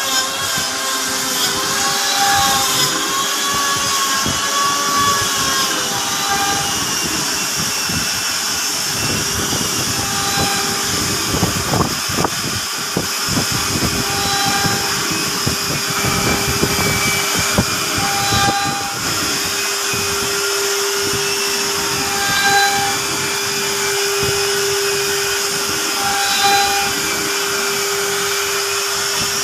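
CNC router running: a steady spindle whine with shorter pitched motor tones that come and go every couple of seconds as the machine moves, over a continuous machining noise.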